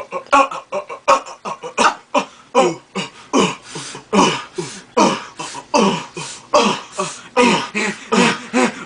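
A person making a rapid string of short, breathy, throaty vocal noises, each dropping in pitch, about two to three a second.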